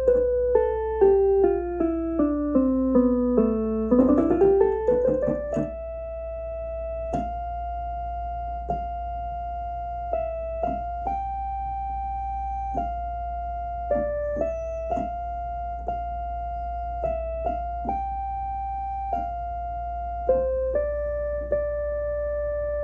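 Electronic keyboard played one note at a time: a quick run of notes stepping down over the first four seconds, a fast run back up, then slower held notes changing every second or so. A steady low hum sits underneath.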